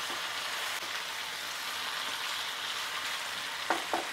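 Chicken pieces and potatoes sizzling steadily in hot mustard oil in a wok as they are stirred, with a few short spatula knocks against the pan near the end.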